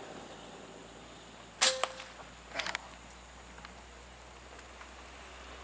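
A single sharp air-rifle shot fired at a spotted dove perched on a wire, about a second and a half in, with a brief ring after the crack. About a second later comes a shorter, quieter rattle of clicks.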